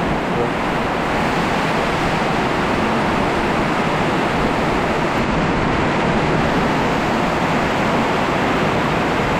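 Heavy wind-driven rain and high wind from a sudden storm, an unbroken rushing noise.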